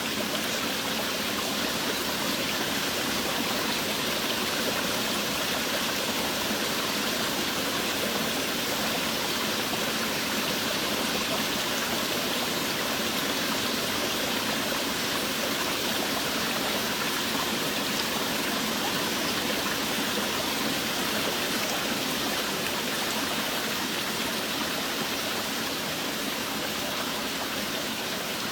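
Steady rain falling, an even rushing hiss that never breaks or changes, with no single drops standing out.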